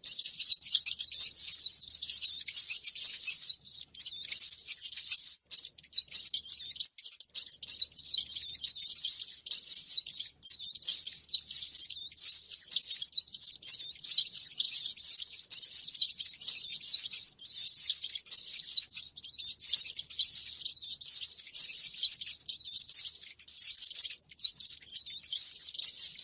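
Rats squeaking and chattering: a dense, unbroken stream of rapid, high-pitched squeaks.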